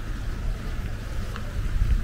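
Wind buffeting the microphone, an uneven low rumble over a steady hiss.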